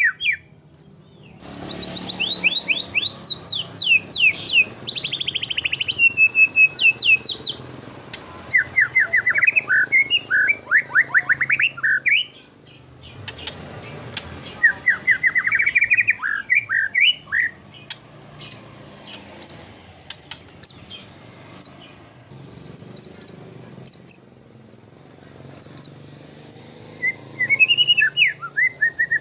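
White-rumped shama (murai batu) singing a varied, full-repertoire song with imitated phrases (isian). It sings fast runs of falling whistled notes and trills, then a long series of short, high, repeated chips, and looping phrases return near the end.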